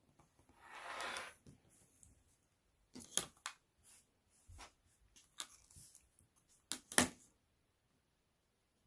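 Rotary cutter blade rolling through felt on a cutting mat in one stroke of about a second, then sharp clicks and taps as the acrylic ruler, felt and cutter are moved and set down, the loudest tap about seven seconds in.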